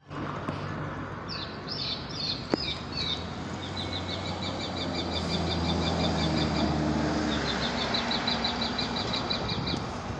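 Diesel locomotives rumbling at idle, a steady low hum that swells a little midway, while a small bird sings in rapid chirping trills over it. One sharp click sounds a few seconds in.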